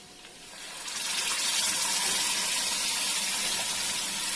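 Wet ground onion-tomato paste poured into hot ghee with frying paneer, sizzling: a loud, even sizzle that swells up over the first second and then holds steady.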